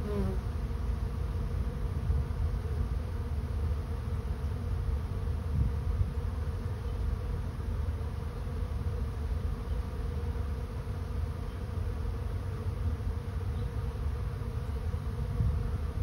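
A swarm of honey bees flying in large numbers, a steady dense buzz, as the swarm moves into a swarm trap.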